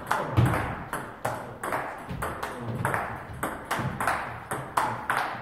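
Table tennis rally of blocks and smashes: the celluloid ball clicking off the paddles and bouncing on the table, about two or three quick hits a second.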